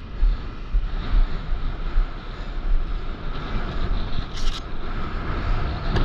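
Strong wind buffeting the microphone in gusts, over the steady rush of surf washing up the beach, with a brief hissing burst about four and a half seconds in.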